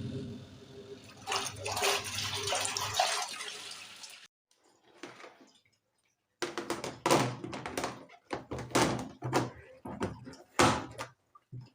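Ramptons twin tub washing machine running: water churning in the wash tub over a low motor hum, which cuts off abruptly about four seconds in. From about six seconds in comes a run of loud, irregular knocks and rustles.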